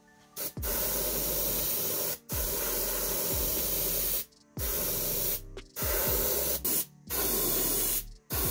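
Gravity-feed airbrush spraying paint in about six hissing bursts of one to two seconds each, with short breaks between them.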